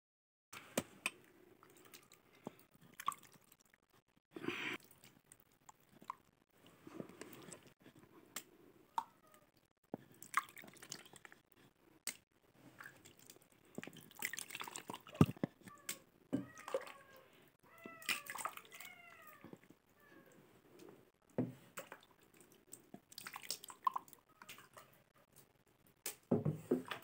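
Buttermilk splashing and dripping as fresh butter is scooped with a wooden scoop and squeezed by hand over an aluminium pot, with scattered knocks of wood against the metal, the sharpest about halfway through. Short squeaky calls that bend up and down come in several times in the second half.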